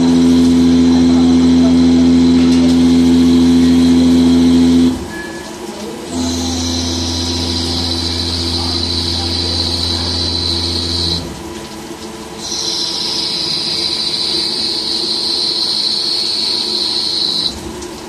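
CNC turning lathe cutting SS316 stainless steel under flood coolant. The cut gives a steady low tone and a high-pitched squeal that slowly falls in pitch. It breaks off briefly between passes about five, eleven and seventeen seconds in, with the coolant spray hissing underneath.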